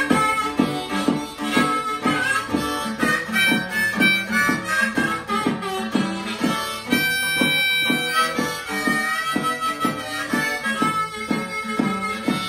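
Blues harmonica played over a steady rhythmic accompaniment of about two to three strokes a second, with a long held note about halfway through.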